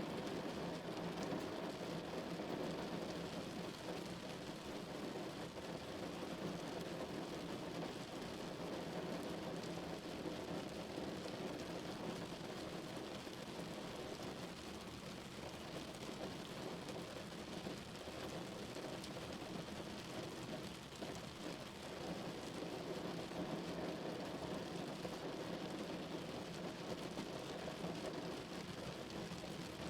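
Steady rain falling on a car's roof and windows, heard from inside the cabin as an even, unbroken patter.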